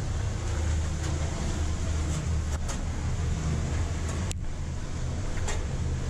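Steady low rumble and rush of a waterfall heard from inside a rock tunnel behind it, with one sharp click a little past four seconds in.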